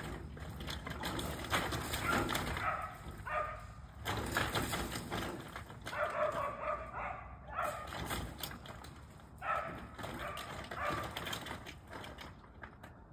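A panicking white-tailed doe caught in a fence cries out in distress, with repeated bleating calls a few seconds apart. Throughout, there are scattered knocks and rattles from her thrashing against the fence and brush.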